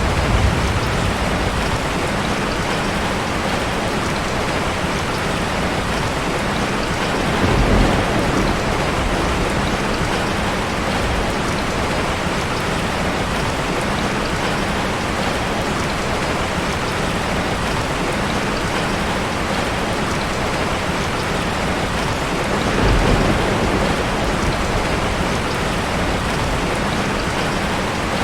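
Steady rain falling, an even hiss of drops on a surface, with two short low rumbles about 8 seconds in and again near 23 seconds.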